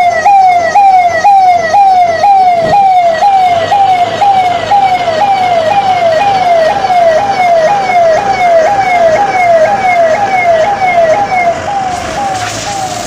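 Fire engine's electronic siren sounding in a fast repeating sweep, a little over two pitch cycles a second. Near the end it drops in level and a hiss joins it.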